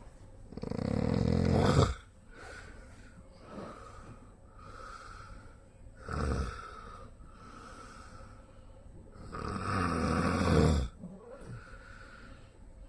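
A man snoring heavily in his sleep: three loud snores, one about a second in, a short one midway, and a long one that cuts off near the eleven-second mark, with quieter breaths between.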